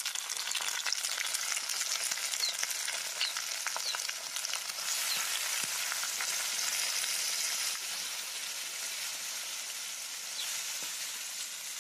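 Chopped raw goat offal and intestines sizzling and crackling in hot oil in a metal kadai as the pieces go in.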